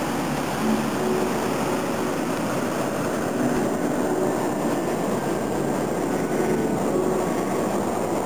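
Hot air balloon's propane burner firing in one long, steady burn.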